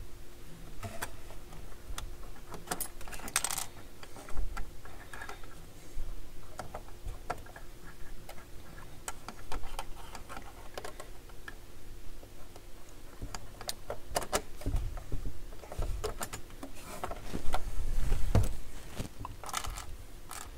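Scattered small clicks, taps and knocks of hands working the metal lever linkage of a Dual CS 607 turntable's tonearm lift mechanism, over a faint steady hum. The handling gets louder for a moment about three-quarters of the way through.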